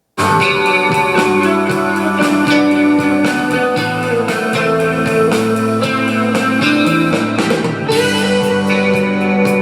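Instrumental guitar music played back through a JBL Clip portable Bluetooth speaker. After a moment of silence it starts suddenly and plays on at a steady loud level.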